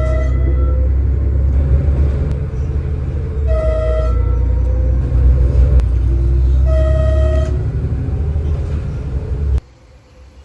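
Horn of a DOT Lint-41 diesel railcar giving short single-tone toots: the end of one right at the start, then two more about three seconds apart, over a heavy low rumble of the train. The sound cuts off abruptly near the end.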